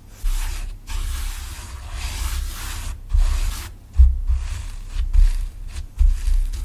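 Clear slime mixed with lipstick being kneaded and stretched by hand: a run of irregular scraping, rubbing bursts, each lasting up to about a second with short breaks between, and a few low thumps.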